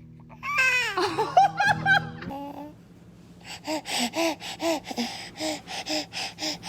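Baby girl giving a high, sliding squeal, then laughing in a run of short, breathy giggles, about three or four a second.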